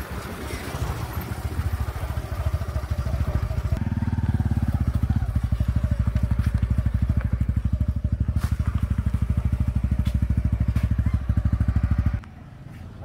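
Honda motorcycle riding with wind noise on the microphone, then its engine running steadily at low revs with an even, rapid pulse. The engine sound stops abruptly near the end.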